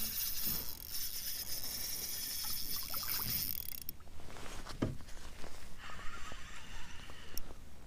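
Water splashing and trickling beside a kayak as a foul-hooked trout is brought in and handled, loudest in the first four seconds, with a single knock about five seconds in.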